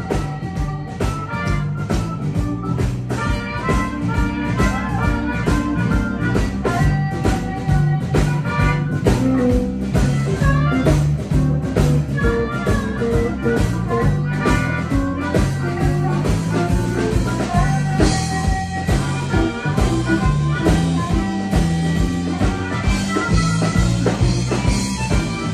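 Live blues band playing loud: electric guitar, bass guitar and drums under keyboard, with a harmonica played cupped against the vocal microphone.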